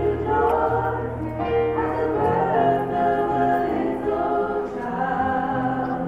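A choir singing in harmony, holding long chords that change about every second.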